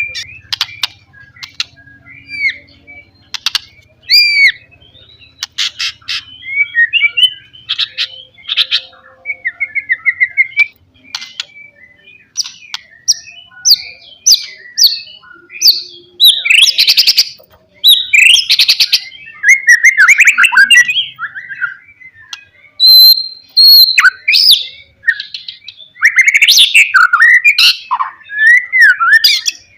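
White-rumped shama singing a loud, varied song of whistled phrases that rise and fall, quick trills and sharp clicking notes, with short pauses between phrases.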